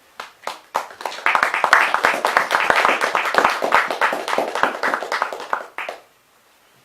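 Audience applauding: a few scattered first claps, then steady clapping for about five seconds that stops abruptly near the end.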